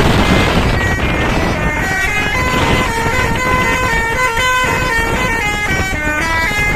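Tour bus's Pakistani-style telolet basuri multi-tone horn playing a tune of short held notes that step up and down every fraction of a second, over the low rumble of the bus. A rush of noise comes first, and the tune begins about two seconds in.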